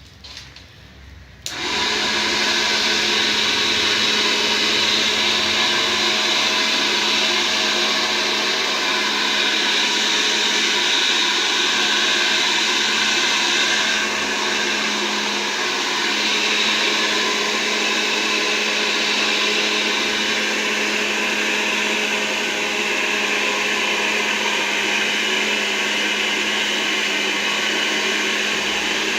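A small 6-volt DC motor in a homemade plastic-bottle vacuum cleaner switches on about a second and a half in and runs with a steady hum and whir.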